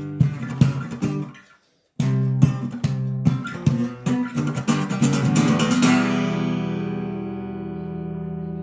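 Acoustic guitar played fingerstyle with percussive knocks on the body mixed in among the plucked notes. It breaks off into silence about a second and a half in, starts again, and ends on a final chord that is left ringing and slowly fades.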